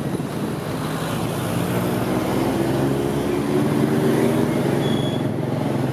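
Motorbike engine running under way in city traffic, heard from the pillion seat; its note climbs a little and gets louder midway as the bike speeds up.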